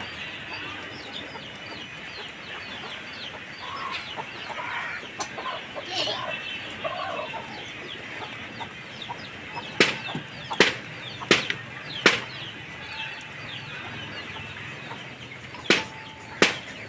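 Chickens clucking over a busy background of small high chirps, with six sharp knocks: four in quick succession about ten seconds in, and two more near the end.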